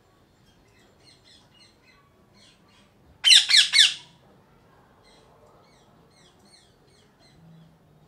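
Indian ringneck parakeet giving three loud harsh squawks in quick succession about three seconds in, with faint short bird chirps before and after.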